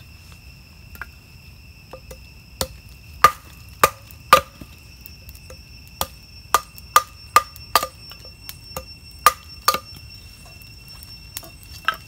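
A hand tool striking wood in sharp, irregular knocks, some in quick runs of about two or three a second. Insects chirr steadily at a high pitch behind.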